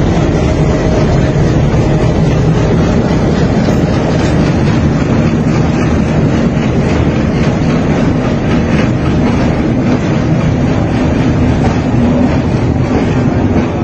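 Diesel locomotive engine running steadily beside a station platform, a constant low hum with a few steady pitched tones.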